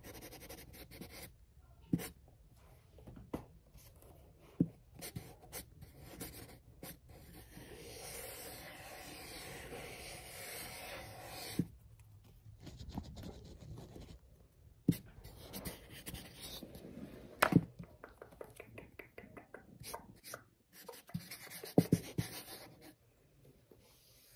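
A marker pen tapped and rubbed right against the recording phone: scattered sharp taps, and a few seconds of steady scratching about eight seconds in.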